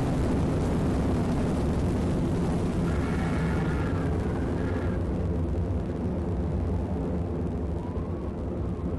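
A deep, steady rumble from the tornado scenario's audio, with a faint wavering pitched tone over it about three to five seconds in.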